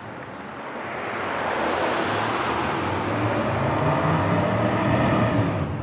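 Road traffic noise from a vehicle passing close by: tyre and engine sound builds over the first two seconds and then stays loud and steady.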